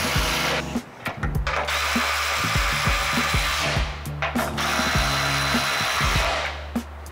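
A power tool with a 14 mm socket runs the slider's frame bolts snug, in runs of about two seconds. It stops about half a second in, runs again from about two to nearly four seconds in, and again from about five to six seconds in, with a few clicks between runs. Background music with a steady beat plays underneath.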